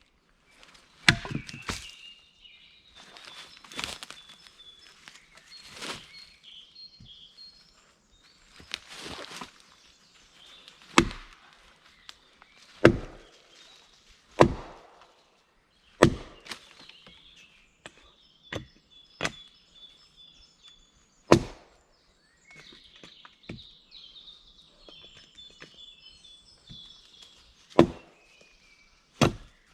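Wood being chopped with a blade: sharp, irregular strikes into wood, one every second or two, with a pause of a few seconds near the end.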